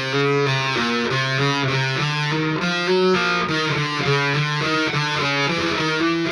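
Electric guitar playing a steady run of single notes: a fretting-hand exercise that works all four fingers.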